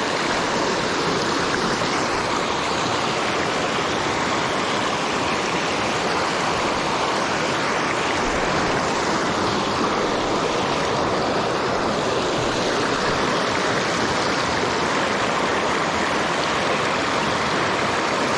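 River water rushing steadily over a rocky rapid, an even, unbroken white-water noise.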